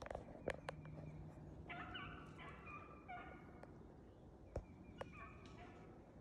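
A pack of beagles baying faintly in the chase, their voices coming in short bunches of yelps a second or two apart. A few sharp clicks come close by.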